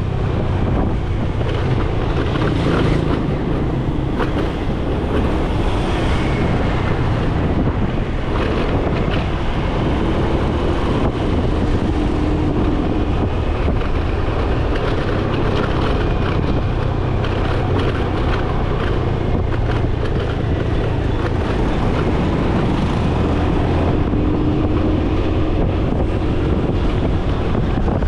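Riding on a motorcycle taxi: steady wind buffeting the microphone over the motorcycle's engine running.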